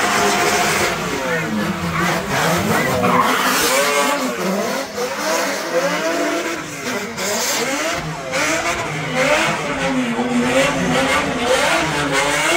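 Drift cars' engines revving hard, rising and falling over and over as the cars slide sideways, with more than one engine heard at once over tyre noise.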